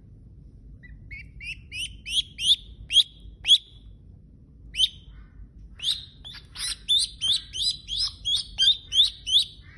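Duckling peeping: a string of short, loud, rising peeps starting about a second in, about three a second, with a short pause near the middle before a faster run.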